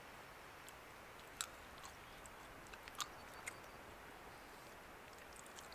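Near quiet, with a few faint clicks and mouth sounds as two people sip a drink from metal camping mugs.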